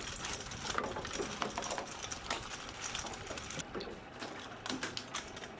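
A rapid, irregular run of small clicks and taps over a faint background hiss.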